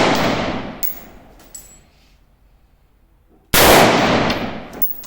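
AR-15 rifle in .223 fired twice: the echoing tail of a shot at the start, then a second shot about three and a half seconds in. After each shot come short metallic clinks, the ejected brass casings landing.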